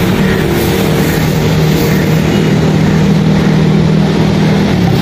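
An engine running steadily close by, a low even hum over street noise, which drops away just before the end.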